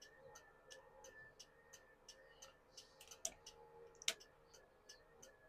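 Ford Club Wagon's turn-signal flasher clicking faintly and evenly with the left turn signal on, the sign that the repaired turn signal switch now works on the left side. Two louder clicks come about three and four seconds in.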